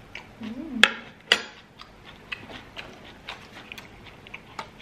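Close-up eating sounds of chips and fried chicken dipped in cheese sauce: soft chewing and many small wet mouth clicks. There are two sharper clicks about a second in, and a brief hummed "mm" just before them.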